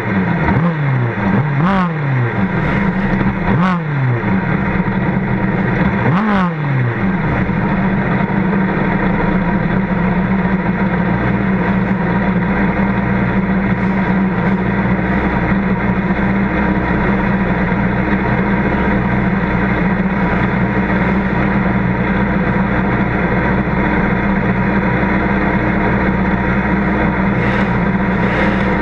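Small sprint race car engine idling, its throttle blipped about four times in the first seven seconds, each time the revs jumping and then falling back; after that it runs at a steady idle.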